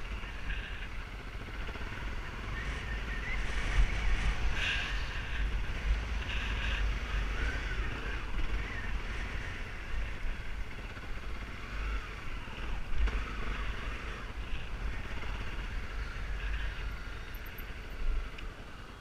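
Motorbike engine running at riding speed off-road, its drone mixed with steady wind buffeting on the bike-mounted camera's microphone.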